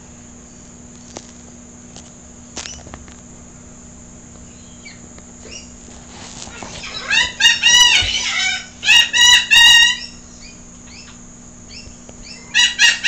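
Laughing kookaburra calling: after a few faint chirps, a loud run of rapid, repeated cackling notes builds up about six and a half seconds in and stops about three seconds later, then starts again near the end.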